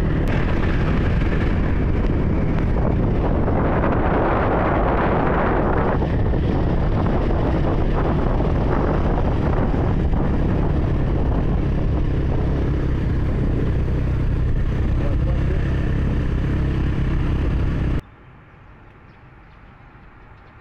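Motorcycle running on the move, its engine rumble mixed with wind rushing over the microphone. It cuts off abruptly near the end to a quiet outdoor background.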